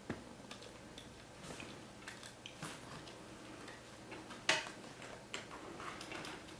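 Small clicks and taps of plastic parts and a flat cable being handled while a new color wheel unit is fitted into a DLP TV, with a sharper click about four and a half seconds in.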